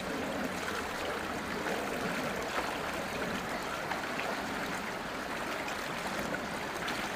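Shallow stream flowing steadily over stones.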